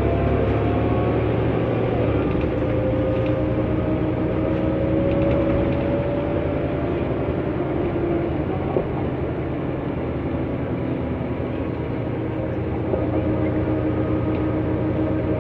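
Mercedes-Benz O 405N2 city bus under way, its engine and drivetrain running with tones that rise slowly, fade about eight seconds in, and return about thirteen seconds in. A single short click sounds about nine seconds in.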